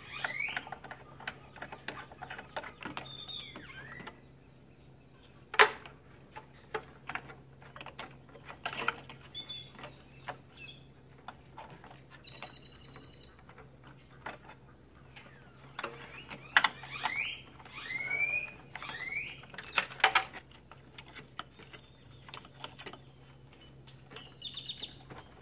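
Scattered clicks and taps of hands working the plastic air hose and its fitting inside an opened Hypertherm Powermax 45 plasma cutter, over a steady low hum. Birds chirp several times in the background.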